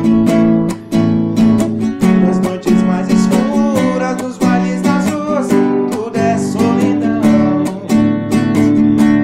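Acoustic guitar strummed in a quick, steady rhythm of chords.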